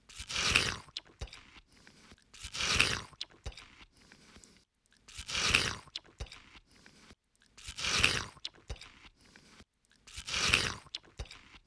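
An ape burping five times, about every two and a half seconds. Each burp is a loud, raspy burst lasting under a second, with faint clicks in the gaps.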